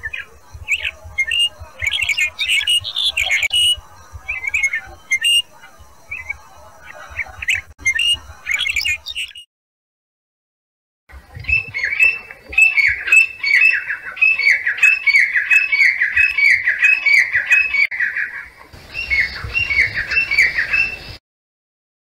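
A rufous-tailed lark singing, a jumble of short varied chirps and trills. After a brief break, a grey francolin calls: a fast run of loud, shrill notes, each falling in pitch, about two a second.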